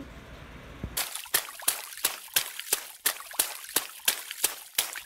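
An even series of sharp, crisp clicks, about three a second, starting about a second in over a faint hiss.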